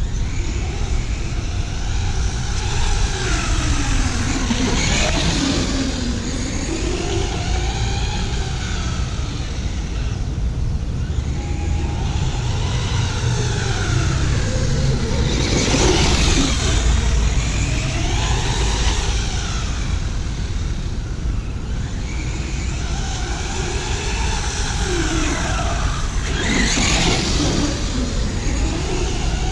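Electric RC monster truck's motor whining up and down in pitch as it repeatedly accelerates and slows, over a steady low rumble.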